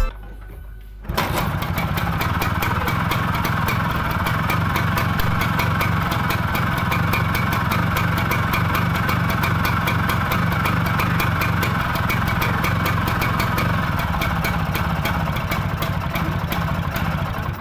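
Vespa scooter's two-stroke single-cylinder engine running steadily with an even firing beat, starting suddenly about a second in and cutting off at the end.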